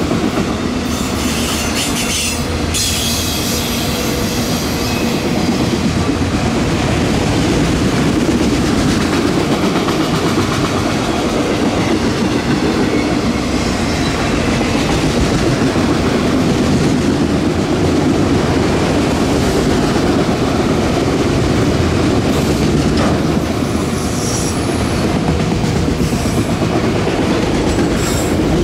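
A freight train of autorack cars rolling past at close range, a loud steady rumble of steel wheels on the rails. Short high wheel squeals break in a few seconds in and again near the end.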